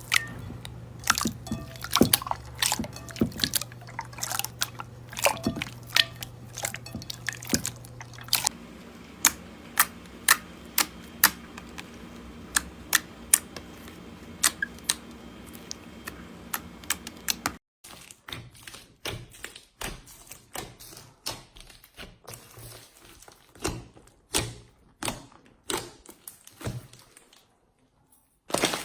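Slime being pressed and poked by hand, making many sharp, wet pops and clicks, at times several a second, over a faint steady hum. The background changes about eight seconds in and drops away about eighteen seconds in, where the pops come more sparsely.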